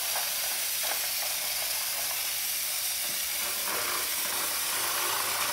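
Steady high hiss with a few faint light clicks.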